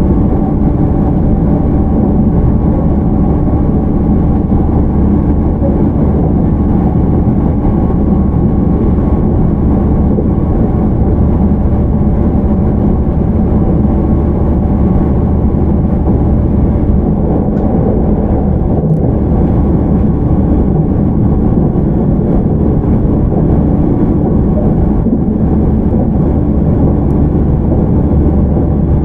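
Running noise inside a JR 313 series EMU motor car with a Toshiba IGBT VVVF drive: a loud, steady rumble of wheels on rail with a hum of constant-pitch tones, the train holding its speed.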